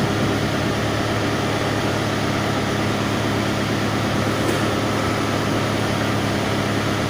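An engine running steadily, a constant low hum under an even noise.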